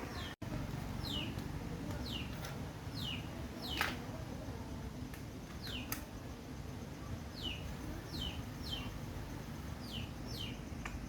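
A small bird chirping over and over in short, falling chirps, over a steady low background rumble, with a couple of sharp clicks around the middle.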